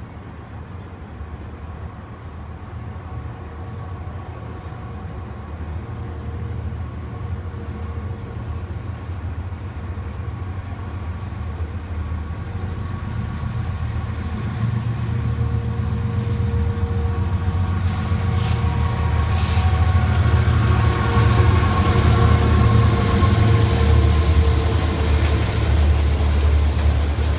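CSX diesel locomotives hauling an autorack freight train approach and pass, their engine drone growing steadily louder. In the last part the autorack cars roll by with a loud rumble of wheels on rail, with a few sharp clicks.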